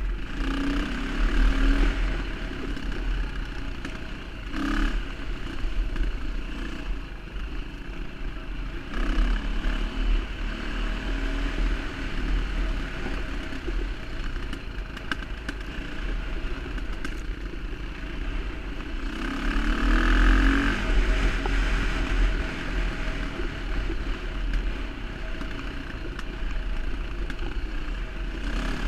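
Dirt bike engine running along a trail, heard on board with a steady low rumble. The throttle swells louder in surges about a second in, around nine seconds, and again around twenty seconds.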